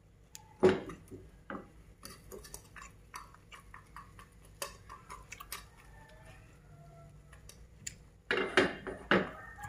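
A metal fork tapping and scraping against a frying pan while stirring fried peanuts and egg: a scattered string of light clicks, with louder scrapes and knocks about a second in and near the end.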